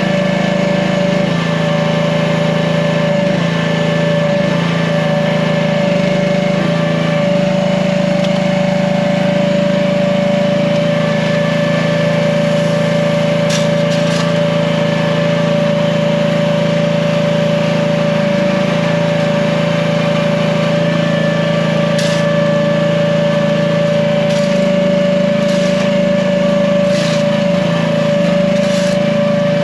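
AGT H15 mini excavator's gasoline engine running at a steady speed, with a few short sharp clacks in the second half.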